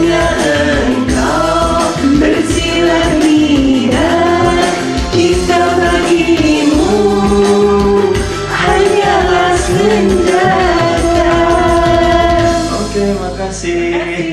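Karaoke singing over a recorded backing track, the voice carrying a melody with long held notes.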